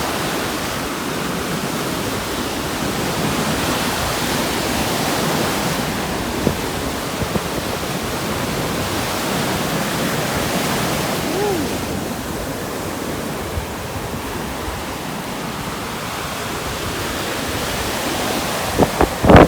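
Steady wash of surf and wind at a beach. Near the end, hard gusts start buffeting the microphone.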